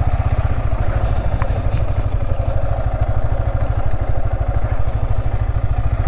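Sport motorcycle's engine running at a steady speed while riding, with a fast, even pulsing note.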